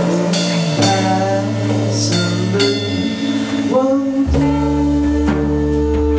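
Live psychedelic rock band playing: electric guitars, electric bass and drum kit, with long held notes. A deeper bass line comes in about four seconds in.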